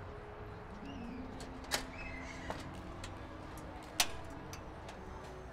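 Two sharp clicks about two seconds apart, the second the louder, from cookware being handled at a tabletop burner. They sit over a faint background with a low steady hum.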